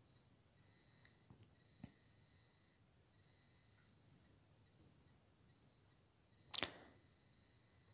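Quiet room tone with a faint steady high-pitched whine. There is one sharp computer-mouse click about six and a half seconds in and a fainter tick near two seconds.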